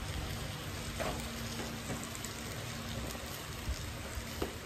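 Meat sizzling gently in its own juices in a stainless steel pot on a gas stove, a steady soft hiss with a couple of faint clicks.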